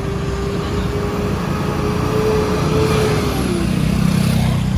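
Road vehicle passing close by: an engine rumble under a steady whine that drops in pitch about three and a half seconds in as the vehicle goes past.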